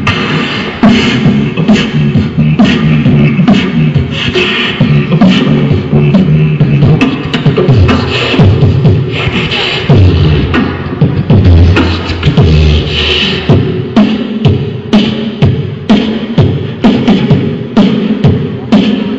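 Live beatboxing: mouth-made kick-drum and snare hits in a steady rhythm over deep hummed bass notes.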